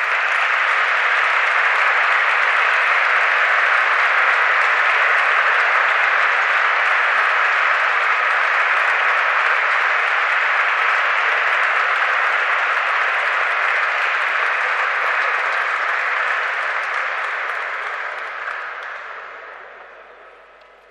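Audience applauding steadily, the clapping dying away over the last few seconds.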